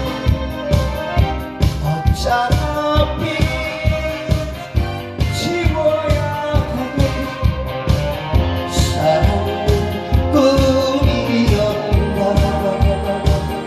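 A man singing a Korean trot song into a handheld microphone over an amplified accompaniment with a steady beat.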